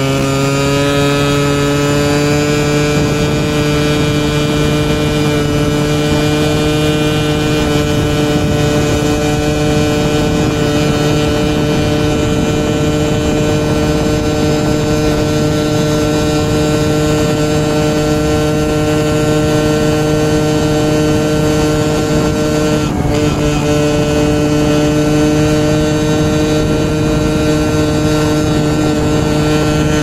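Small motorcycle engine running steadily at cruising speed, heard from the rider's seat over steady wind noise. Its pitch rises a little in the first few seconds as the bike speeds up, then holds, with a brief wobble about two-thirds of the way through.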